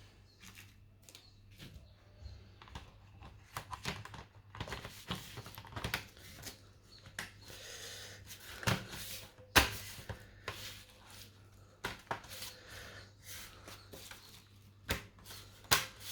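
Hands working on an HP 255 G5 laptop's plastic case: an irregular run of clicks, taps and scrapes, with sharper knocks about nine and a half seconds in and twice near the end.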